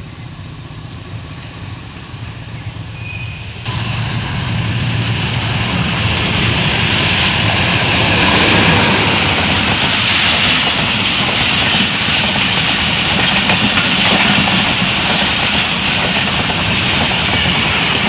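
Express passenger train at full speed, its coaches running past close by: a loud, steady rush of wheels on rails that starts abruptly about four seconds in, after a quieter low rumble of the approaching train.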